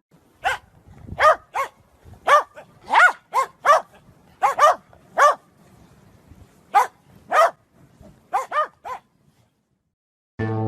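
A dog barking repeatedly: about fifteen short, sharp barks in uneven clusters, stopping near the end.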